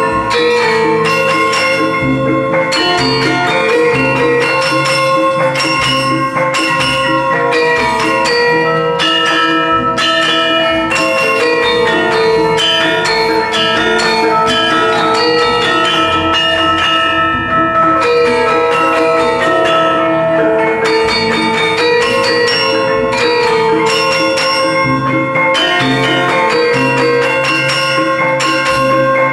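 Javanese gamelan ensemble playing a lancaran in pelog tuning, pathet barang: bronze metallophones and gongs struck in a steady, loud, ringing texture with regular low strokes.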